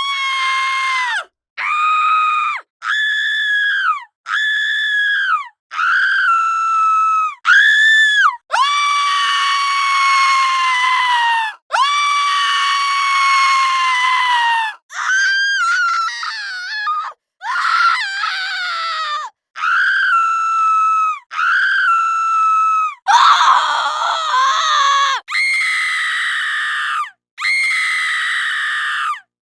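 A woman screaming over and over: a string of short high-pitched screams about a second each, with two longer held screams of about three seconds, each dropping in pitch as it ends.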